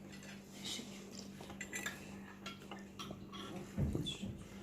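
Scattered light clinks and taps of cutlery against plates and dishes, as at a meal table, over a faint steady low hum.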